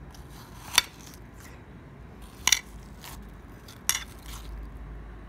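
Metal spoon scooping watermelon flesh, clinking sharply about three times: about a second in, midway and near the end.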